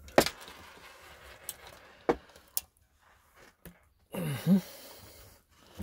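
Scattered sharp clicks and taps of small metal parts being handled on a table: loose pop rivets, a spent rivet mandrel and a hand pop-rivet gun. About four seconds in there is a brief low voice sound.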